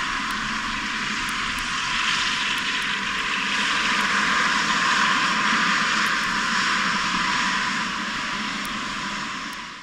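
Boeing 777-300ER's GE90 jet engines running at low thrust as the airliner taxis close past, a steady jet rush that swells about halfway through and eases off near the end.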